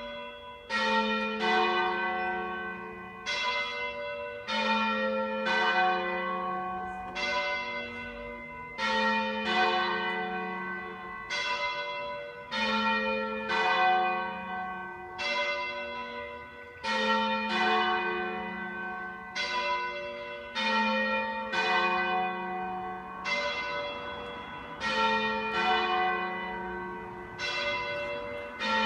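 Church bells pealing: several bells of different pitches struck one after another in a repeating sequence, about one strike a second, each ringing on and overlapping the next, with the deepest bell sounding about every four seconds.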